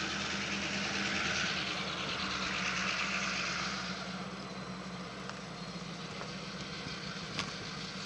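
Vehicle noise: a steady low engine hum under a rushing sound that is strongest for the first few seconds and eases off about four seconds in.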